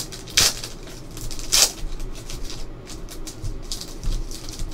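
A foil trading-card pack being torn open: two sharp rips in the first two seconds, then crinkling and crackling of the foil wrapper as it is peeled back from the cards.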